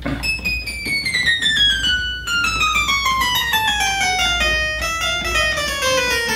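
Sabathil & Son harpsichord played on its 4-foot register alone, which sounds an octave above the written pitch: a steady descending scale of single plucked notes, stepping from the high treble down toward the middle of the range.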